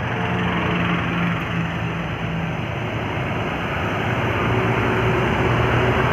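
Heavy road vehicle's engine running with road noise, a low steady hum that grows louder over the last couple of seconds as it comes closer.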